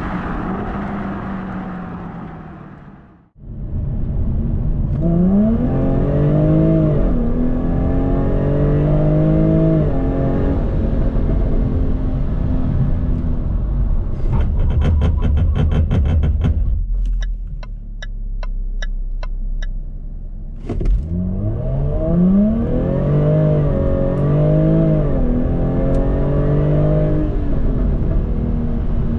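A sports car's engine accelerating hard, its pitch climbing and dropping back at each gear change, heard in two separate runs. Between the runs come a few seconds of sharp clicks and evenly spaced ticks over a low rumble.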